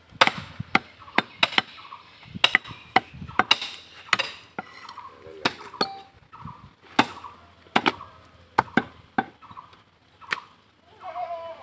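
A heavy butcher's chopping knife striking beef on a round wooden log block: a run of sharp, irregular chops, often two or three a second, in quick groups with brief pauses between.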